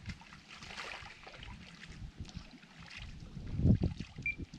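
Water sloshing and splashing at the riverbank as a caught carp is released back into the river, with low wind buffets on the microphone that are strongest a little past halfway.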